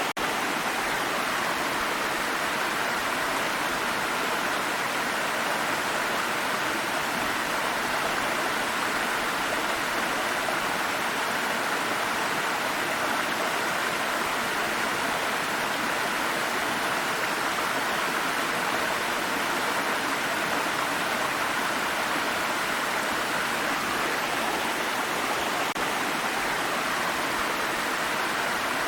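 A water stream running over rocks in a steady, even rush of water, with no change over the whole stretch.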